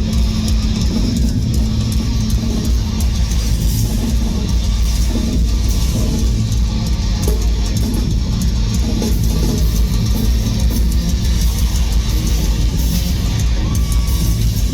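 Metallic hardcore band playing live and loud: distorted electric guitars and a pounding drum kit in a dense, heavy wall of sound.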